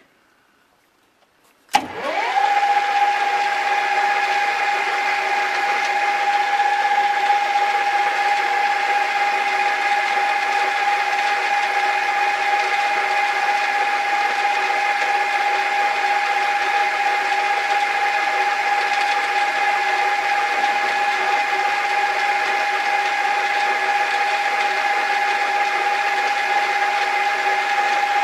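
A 40-year-old metal lathe is switched on about two seconds in, spins up quickly and then runs at a steady speed with a constant whine.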